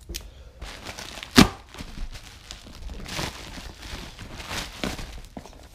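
Padded plastic mailer envelope crinkling and rustling as it is handled and torn open. One sharp snap about a second and a half in is the loudest sound.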